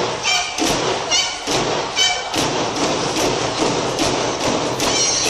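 Japanese taiko drums struck together by an ensemble in a steady beat, about two to three strokes a second, with short high-pitched calls cutting in between strokes a few times.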